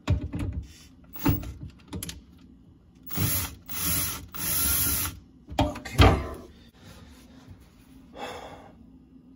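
Milwaukee cordless drill with a 5/16 nut driver bit loosening a screw-type hose clamp on a dishwasher drain hose. Knocks and clicks as the bit is fitted onto the clamp screw, then three short runs of the drill motor about three to five seconds in, and a sharp knock just after.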